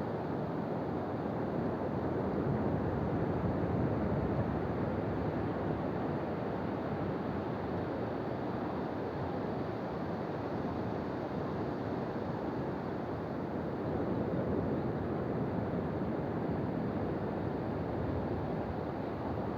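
Ocean surf on a beach: a continuous rush of waves that swells a few seconds in and again past the middle.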